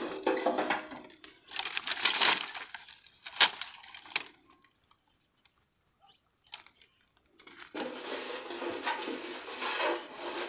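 Dry firewood being handled and stacked for a bonfire: rustling and scraping of branches, with a sharp knock of wood about three and a half seconds in. Crickets chirp faintly and steadily in the background.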